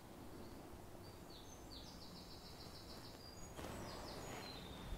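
Faint woodland birdsong: short high-pitched chirps and a quick trilled phrase from small songbirds, with a soft rustle about three and a half seconds in.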